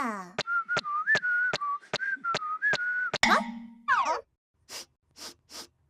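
A cartoon character whistling a simple tune over even footstep taps, about two or three a second, as if walking along. The whistling breaks off a little after three seconds into a short gliding vocal sound, followed near the end by three soft swishes.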